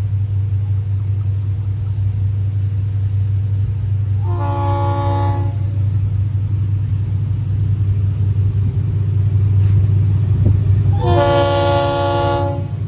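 Diesel freight locomotive's air horn sounding two blasts, a shorter one about four seconds in and a longer one of about a second and a half near the end, over a steady low rumble that grows slightly louder.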